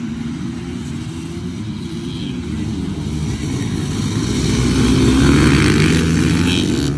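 A pack of dirt bikes at full throttle off a mass race start, many engines running together and growing louder as the first riders pass close by about five seconds in.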